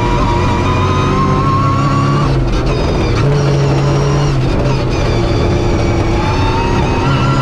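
Rally car engine heard from inside the cabin, accelerating hard: its pitch climbs, drops at a gear change about two seconds in, and climbs again through the next gears.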